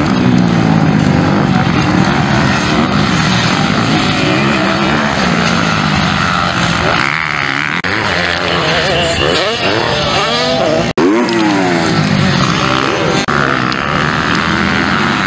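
Several motocross bikes racing on a dirt track, engines revving hard with the pitch repeatedly rising and falling as the riders work the throttle and gears through the corners and pass close by. The sound drops out for an instant a few times, deepest about two-thirds of the way in.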